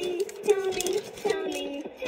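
Fisher-Price Link Squad electronic toy playing a children's song through its small speaker, a sung melody over music with a few sharp clicks.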